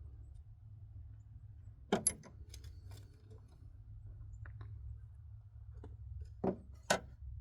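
A few sharp knocks and clicks of tools and parts being handled in the engine bay: a pair about two seconds in, scattered light ticks, and two louder knocks near the end.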